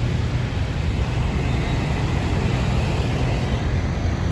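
Tour bus diesel engine running with a steady low rumble, no horn sounding.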